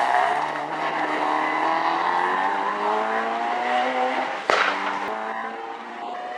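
Honda K20A2 four-cylinder DOHC i-VTEC engine in a Civic EK9 Type R, its exhaust note climbing slowly in pitch for about four seconds. About four and a half seconds in, two sharp exhaust backfire pops come roughly half a second apart, and the engine then holds a steady note.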